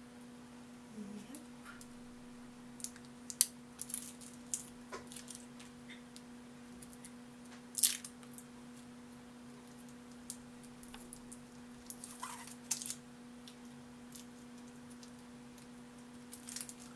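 Hands opening a liquid eyeliner's packaging: scattered crinkles, small tearing sounds and sharp clicks, the loudest a little before the middle, over a steady low hum.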